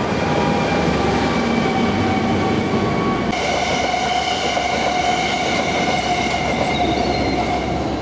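A self-propelled track maintenance machine passing close by, its engine and wheels rumbling over the rails. About three seconds in, an electric multiple-unit passenger train on the far line takes over with a steady high whine over its wheel noise.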